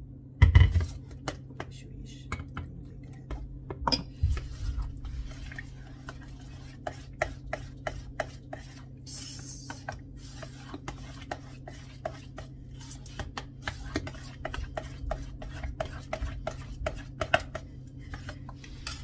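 A metal wire whisk stirring pancake batter in a stainless steel bowl: quick repeated clicks and scrapes of wire against the metal bowl, several a second, over a steady low hum. A heavy thump comes about half a second in.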